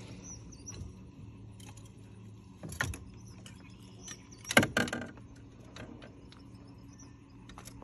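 Sharp knocks and a rattle from gear in a small fishing boat while a bass is played beside it: one knock near the three-second mark and a louder clattering cluster a little later, over a steady low hum.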